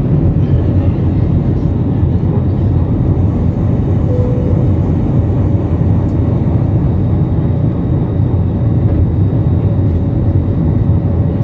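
Airbus A321 jet engines at climb thrust after takeoff, heard inside the cabin over the wing: a loud, steady low roar with a faint steady hum above it.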